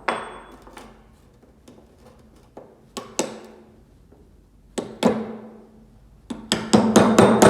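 Hammer tapping on metal: a few single sharp strikes that ring briefly, then a quick run of about a dozen strikes near the end.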